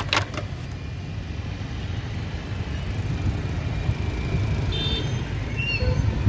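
Steady low rumbling noise that grows slightly louder, with a few faint short high tones about five seconds in.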